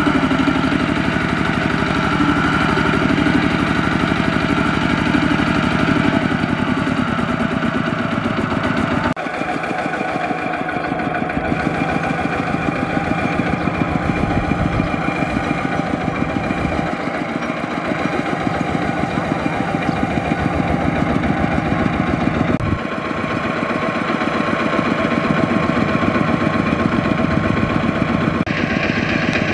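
Single-cylinder diesel engine of a two-wheel walking tractor running steadily under load as it hauls a trailer of rice sacks through deep mud. The engine's tone shifts abruptly twice.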